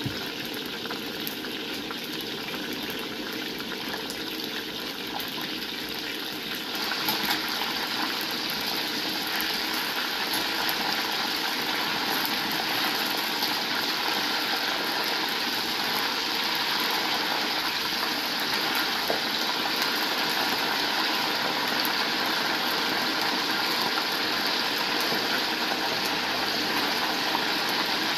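Flour-and-egg-battered lumek fish (Bombay duck) deep-frying in a wok of hot oil: steady sizzling and bubbling, growing louder about seven seconds in.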